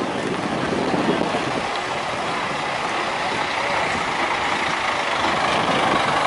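Large bus driving past, a steady rush of engine and road noise that grows slightly louder toward the end.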